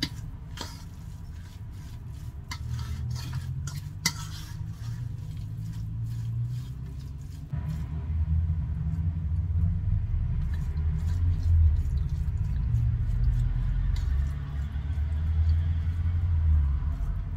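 A fork clicking and scraping against a stainless steel bowl, stirring cottage cheese with egg into syrniki dough. A steady low rumble runs underneath and gets louder about halfway through.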